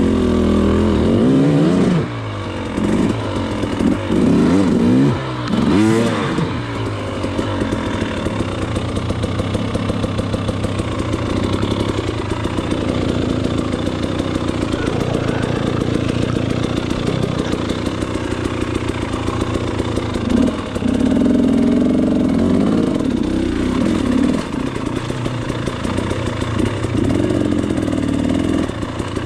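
KTM 300 XC two-stroke dirt bike engine revving in quick throttle blips, then running steadily at lower revs, with more rises in revs about two-thirds of the way through and near the end.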